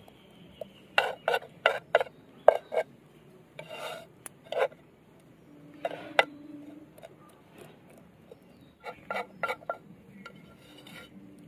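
Steel kitchen knife tapping and scraping against a terracotta clay plate as it presses a crumb-coated chicken fillet into shape. Sharp clicks come in uneven bunches, a quick run of four about a second in and another run near the end, with a short scrape in between.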